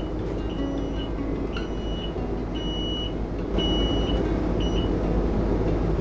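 Electronic warning beeps from a Q'Straint Quantum wheelchair securement station as it cycles after its button is pushed: one high, steady beep about once a second, stopping about five seconds in, over a steady low hum.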